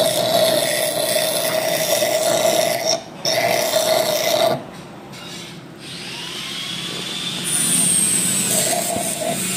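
Electric power tool running in bursts with a steady whine. It runs about three seconds, pauses briefly, runs again and stops. Quieter gliding pitches follow, and it starts up again near the end.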